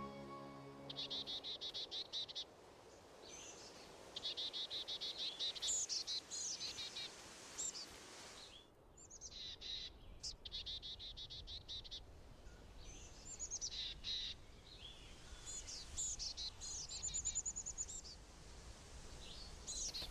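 Songbirds singing at dawn: fast, evenly pulsed trills come in bouts of a second or two, mixed with high chirps and short whistles.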